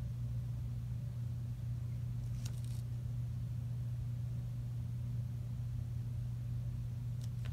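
A steady low hum runs throughout. Over it is the faint scratching of a felt-tip pen drawing on paper, with one brief louder scratch about two and a half seconds in.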